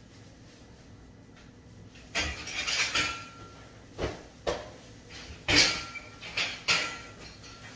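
Linen bags and metal linen trolleys being handled: a rustling from about two seconds in, then a string of knocks and bumps, the loudest about halfway through, two of them with a short metallic ring.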